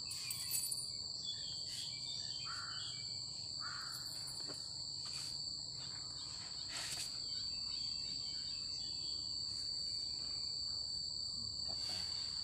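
Insects trilling: a steady, high-pitched continuous tone over a faint outdoor hiss.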